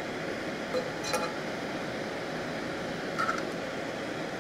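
Soldering fume extractor fan running with a steady whooshing hiss and a faint hum. Two light clinks come about a second in and again near three seconds.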